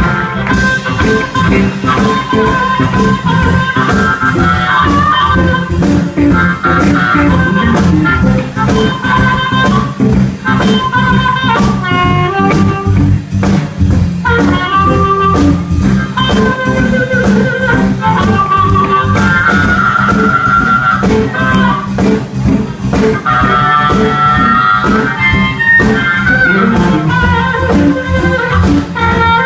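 Live electric blues band: a harmonica played into a microphone carries the lead with bending notes, over electric guitar and a drum kit keeping a steady beat.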